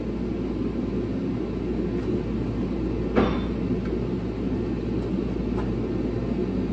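A steady low machine drone, with one sharp crack about three seconds in and a fainter tick later.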